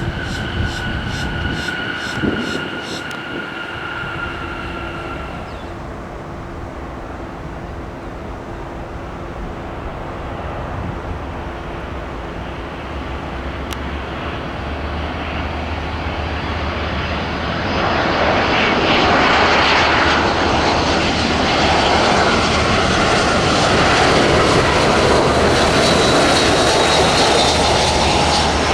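Jet airliner engines: a high turbine whine that sinks a little and fades out in the first few seconds, then a loud jet roar that builds about two-thirds of the way through and holds.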